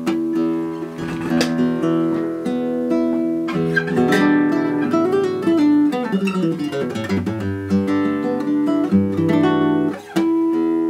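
Nylon-string classical guitar played solo, fingerpicked single notes and chords, with a falling run of notes in the middle, a brief break near the end, then a chord left ringing.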